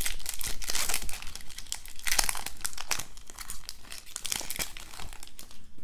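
Foil wrapper of a trading card pack being torn open at its crimped seam and crinkled as the cards are slid out, crackling in several bursts.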